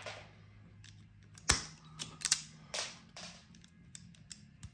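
Self-adjusting wire strippers snapping as they strip insulation from cable cores: a string of sharp clicks, the loudest about one and a half seconds in.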